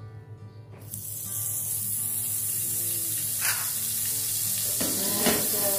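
Margarine sizzling as it melts in hot cooking oil in a wok; the sizzle starts suddenly about a second in and then holds steady.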